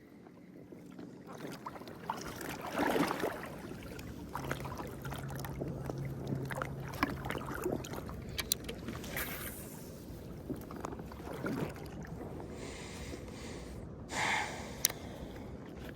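Water sloshing and splashing around a float tube on the lake, with louder swells three times and scattered sharp clicks and knocks.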